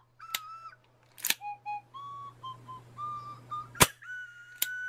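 Sharp clicks and snaps of a Crown Model gas revolver (S&W M29 replica) being cocked and fired into a chronograph, four in all, the loudest nearly four seconds in. Background music with a whistled melody runs beneath.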